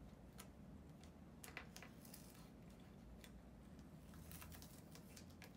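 Masking tape being peeled off the backs of wooden icy pole sticks: faint crackling of the tape, with small clicks as the sticks shift against each other on the table.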